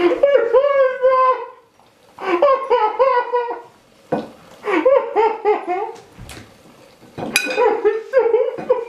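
A person laughing hard in four breathless, high-pitched bouts of pulsing "ha-ha" sounds, with short pauses between them. A few sharp clicks fall in the gaps.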